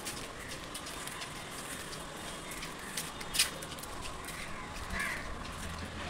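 Footsteps walking on a brick-paved path, with one sharp tap about halfway through and a single bird call near the end.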